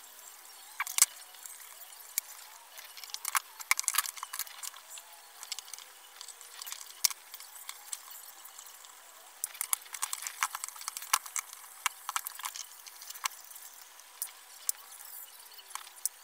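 Light clicks and taps of small metal clock parts and hand tools being handled on a pendulum clock's brass movement, coming irregularly in clusters.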